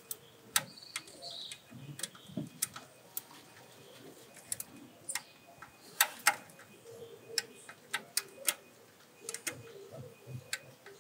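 Ratchet of a torque wrench clicking in short, irregular runs of single clicks as the crankshaft position sensor bolts are tightened to 8.5 newton meters.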